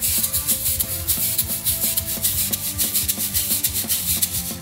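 Banana-shaped shaker shaken rapidly close to the microphone: a fast, dense rattle that stops near the end, over synth-pop backing music.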